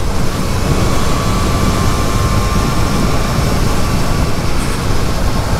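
Steady rush of wind and road noise with the Triumph Trident 660's inline three-cylinder engine running underneath, the motorcycle cruising at road speed.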